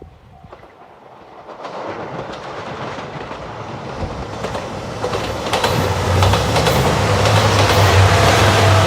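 A 2700 series diesel limited-express train approaching and passing a level crossing, growing steadily louder, with the wheels clacking over rail joints and the engines humming low as it draws level. A level-crossing warning bell rings at the very start.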